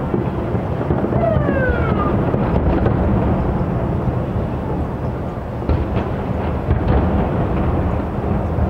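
Distant aerial fireworks shells bursting, heard as a continuous deep rumble of overlapping booms. There is a brief falling whistle about a second in and a few sharper bangs near the end.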